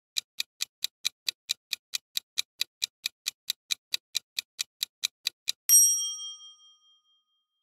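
Quiz countdown-timer sound effect: rapid clock ticking, about four or five ticks a second, then a single bright bell ding a little before the end that rings out and fades. The ding marks the end of the countdown and the reveal of the answer.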